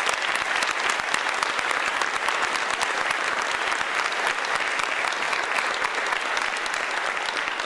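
Audience applauding steadily: dense, continuous clapping from a large crowd.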